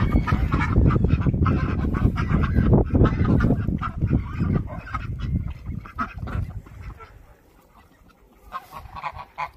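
Domestic geese honking among a grazing flock of ducks and geese, over a low rumble. The calls are thickest in the first few seconds and die away about seven seconds in.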